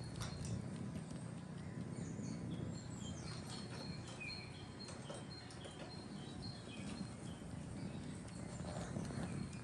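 Kittens suckling on a knitted blanket: soft rhythmic sucking and smacking over a low rumble, with faint high chirps scattered throughout.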